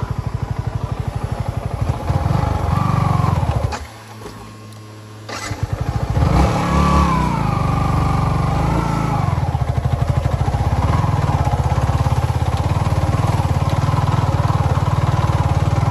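Yamaha MT-15's 155 cc single-cylinder engine running under load. About four seconds in it drops away for over a second, then picks up again, the revs rising and falling.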